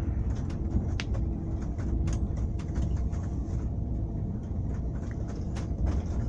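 Airport apron bus driving: a steady low engine and road rumble with frequent short rattles and clicks.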